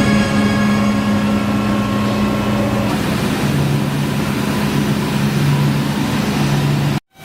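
Background music with sustained held chords over a hiss; the chord changes about three seconds in, and the sound cuts out briefly near the end.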